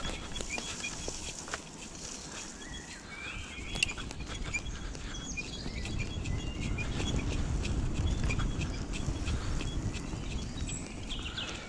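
Kettler e-bike rolling over a wet forest trail: a steady low rumble with scattered small clicks and rattles from the tyres and bike. Birds chirp faintly in the background.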